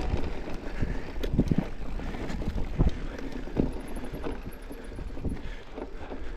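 Mountain bike riding down a dirt trail: a steady rush of tyre noise and wind on the microphone, broken by several short knocks and rattles from the bike over bumps.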